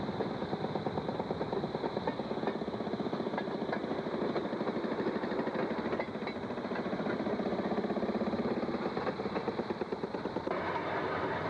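Two-stroke gasoline engines of railroad motor cars (track speeders) running, with a rapid, even train of firing beats.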